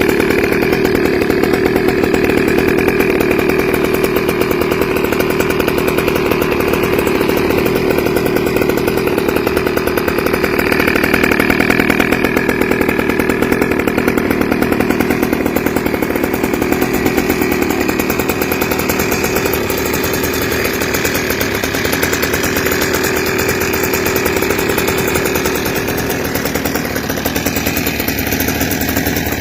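Small two-stroke Goped engine running steadily through an RF aftermarket expansion-chamber exhaust pipe, a fast, buzzing two-stroke note.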